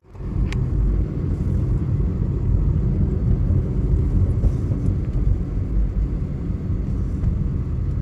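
Steady low rumble of a car driving on town streets, heard from inside the cabin: engine and tyre noise.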